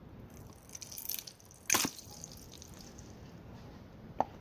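Small wet handling sounds from a cut-open foam squishy toy with goo oozing out: a patch of soft crackles about a second in, one short sharp smack just under two seconds in, and a small click near the end.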